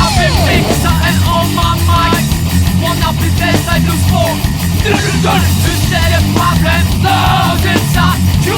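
Heavy punk-metal rock band playing: distorted electric guitars, bass guitar and drums, loud and steady, with pitched lead lines bending up and down over the top.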